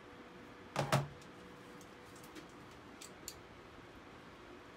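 Two quick metallic clacks about a second in as piston ring expander pliers are put down on the workbench, followed by a few faint ticks of handling the piston.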